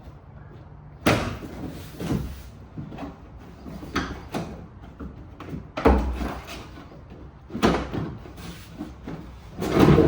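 Hard plastic wheel well liner being handled and pulled against the truck's wheel well: a series of irregular knocks, bumps and scrapes, the sharpest about a second in and near six seconds.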